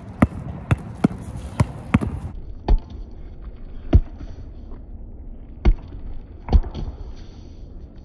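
A basketball dribbled on a concrete court: single sharp bounces at an uneven pace, about five quick ones in the first two seconds, then spaced a second or more apart.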